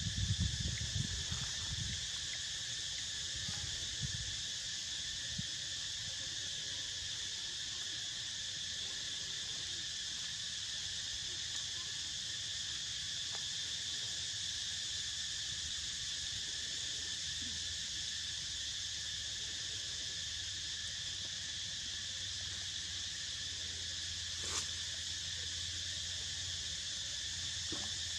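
Steady, unbroken chorus of insects droning at several high pitches. A few low bumps sound in the first seconds, and a single click comes near the end.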